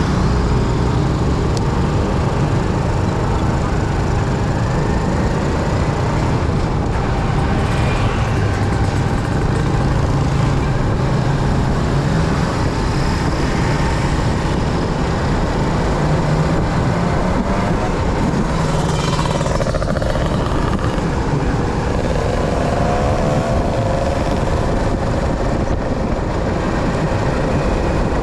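Motor vehicle running on the road: a steady engine with heavy road and wind noise and other traffic, its pitch shifting a little with speed.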